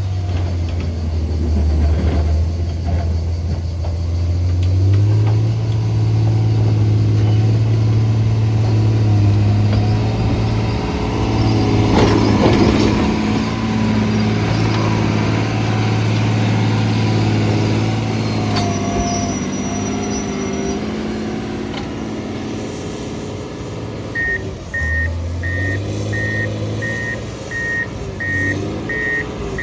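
John Deere earthmoving machine's diesel engine working, its pitch stepping up about five seconds in and dropping back near the end. In the last few seconds its reversing alarm beeps steadily, about one and a half beeps a second.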